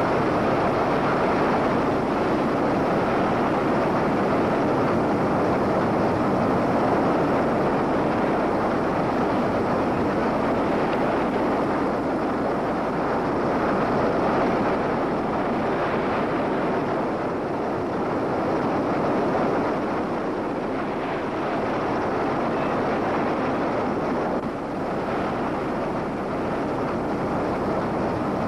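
Steady, unbroken rushing roar of a fast-moving wildfire and its wind on the microphone, the noise firefighters call the freight train.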